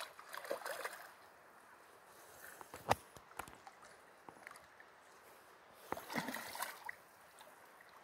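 A salmon splashing at the surface in shallow river water, in two short bouts about five seconds apart, with a single sharp click about three seconds in.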